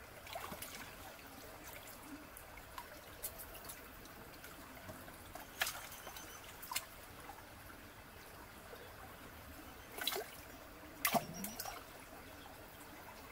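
Shallow stream water trickling, with small splashes and sloshes as hands rummage in it, and a few short, sharper splashes scattered through, two of the strongest near the end.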